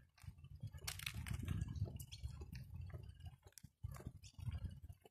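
Walking and handling noise from a handheld camera: irregular soft crunches and clicks of footsteps and the grip on the camera, over a low rumble that briefly drops out a couple of times.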